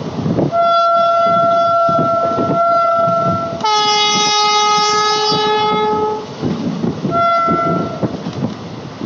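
Train horn sounding over the rumble and clickety-clack of a moving train: a long high note, then a louder lower note, then a short high note near the end.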